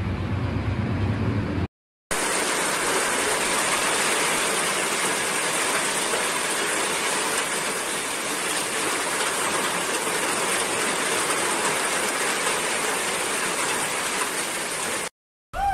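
Heavy tropical downpour: a dense, steady hiss of rain pouring down. It is preceded by a brief rush of floodwater flowing that cuts off about two seconds in.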